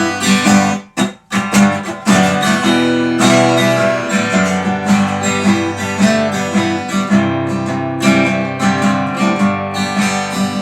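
Acoustic guitar strummed in an instrumental break between verses of a song; it drops out briefly about a second in, then the strumming picks up again.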